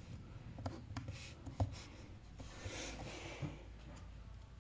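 Faint handling noises: a few light knocks and clicks, the loudest about a second and a half in, with a soft rustle around three seconds in.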